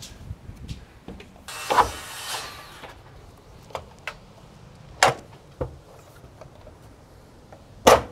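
A composite deck board is handled on wooden deck joists: a brief scraping slide about a second and a half in, then scattered sharp knocks. The loudest knocks come about five seconds in and near the end.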